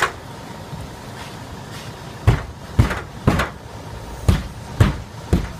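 Six heavy thuds on a pitched roof, in two sets of three about half a second apart, starting a little over two seconds in, from a firefighter working on the roof with a pike pole.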